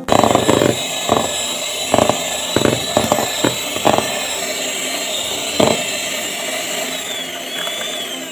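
Electric hand mixer running at speed, its beaters whipping cream in a plastic bowl, with a steady high motor whine and several sharp knocks as the beaters hit the bowl. The cream is being beaten stiff. The whine falls in pitch near the end as the motor slows.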